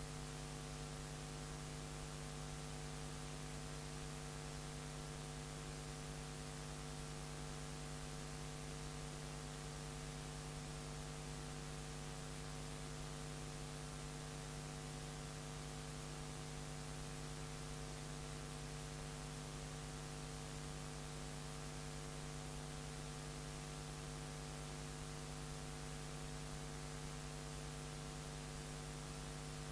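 Steady electrical mains hum, several buzzing tones held perfectly constant over a layer of hiss, with no music, voices or other events.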